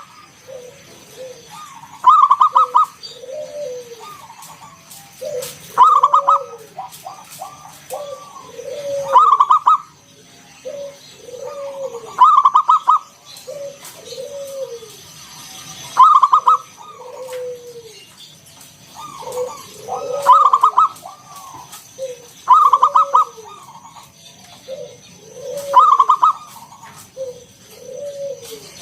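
A zebra dove (perkutut) singing its cooing song over and over: a loud rattling note about every three to four seconds, with softer arched coos between.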